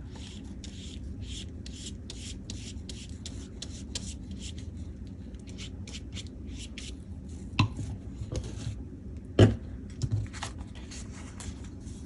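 Scissors snipping through magazine paper in a rapid run of short snips. Two louder knocks come about two-thirds of the way in, under two seconds apart.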